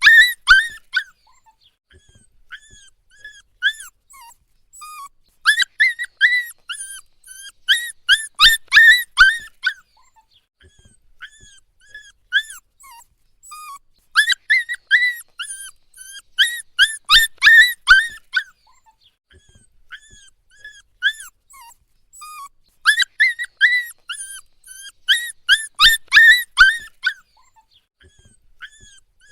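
Puppy whining and crying: short, high-pitched whimpers that each rise and fall. They come in bouts of rapid whines lasting a few seconds, about every nine seconds, with softer single whines between.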